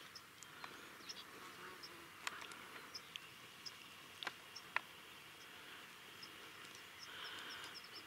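Faint outdoor ambience: scattered short high chirps, a few sharp clicks around the middle, and a buzz about seven seconds in.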